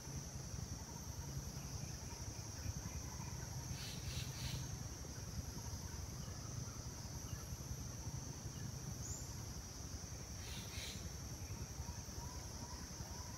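Steady high-pitched insect drone over a low rumble, with two short clusters of bursts: one about four seconds in and another about two-thirds of the way through.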